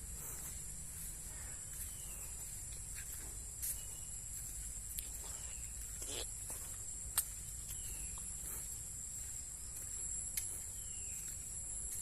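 Insect chorus, a steady high-pitched trill, with a few short falling chirps and scattered sharp clicks over a low rumble.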